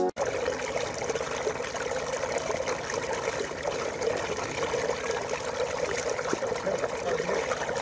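Water gushing and splashing steadily into a shallow round mesh net at the water's edge, a constant churning rush.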